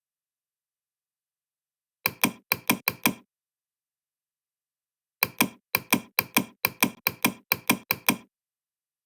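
Sharp knocks on a hard object, each ringing briefly at the same pitches: a group of about six about two seconds in, then a longer run of about a dozen from about five seconds in, falling roughly in pairs, with dead silence around them.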